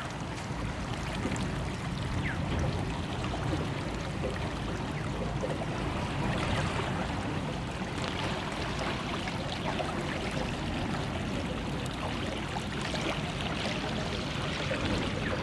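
River water flowing and lapping, with small splashes and trickles.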